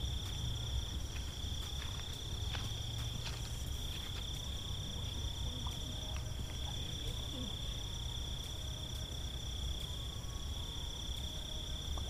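Night insects trilling in one steady high-pitched chorus, over a low rumble.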